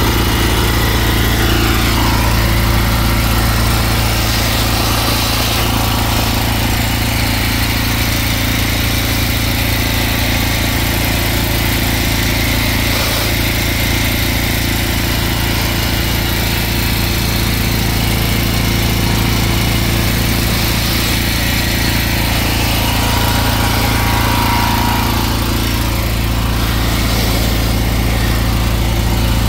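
Gutter vacuum running steadily, its hose nozzle held in pooled dirty water at a flex barrier, sucking the water up off block paving.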